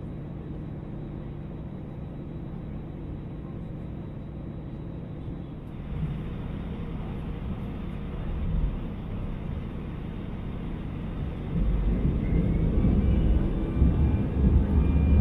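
Airbus A319 jet engines and airframe heard from inside the cabin as the aircraft is pushed back and taxis: a steady low rumble that grows louder about twelve seconds in, with a faint high whine over it.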